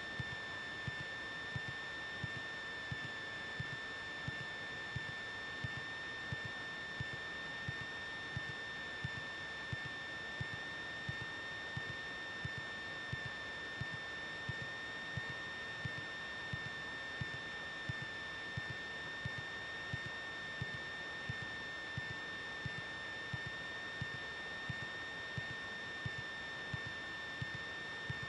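Steady high-pitched electrical whine with a faint low tick repeating about one and a half times a second. It is heard on a Cessna 182's radio/intercom audio line while the radio is silent.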